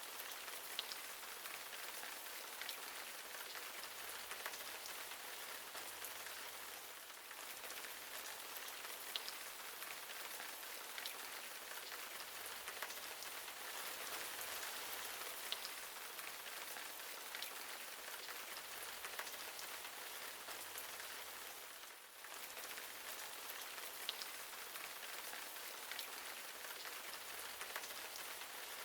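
Steady hiss of falling water, with scattered faint ticks.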